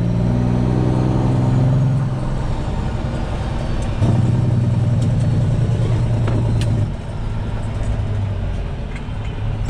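Semi truck's diesel engine running, its note going louder and quieter in turns: it eases off about two seconds in, picks up again at about four seconds and eases off near seven.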